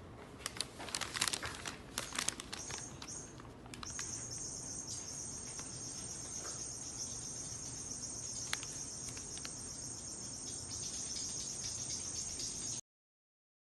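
Insects chirring: a steady high-pitched trill that sets in about four seconds in, after a few seconds of light tapping clicks, and cuts off suddenly near the end.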